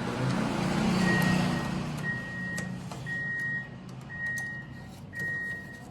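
An electronic beeper sounding a steady high tone about once a second, each beep about half a second long, over a low hum. A rushing noise in the first two seconds fades as the beeping starts.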